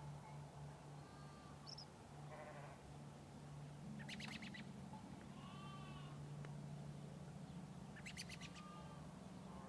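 Farm morning ambience: sheep bleating and birds chirping now and then, over a faint steady low hum.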